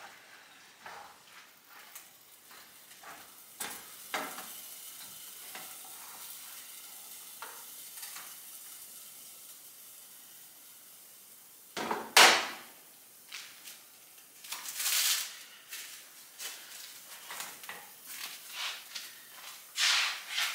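Ground beef frying and sizzling in a pan, with scattered clicks and scrapes of stirring. A sharp clatter comes about halfway through, and more near the end.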